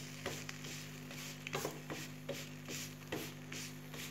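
A wooden spatula is stroked and pressed over a thin crepe cooking on a non-stick dosa pan, making about two or three soft scraping strokes a second over a steady low hum.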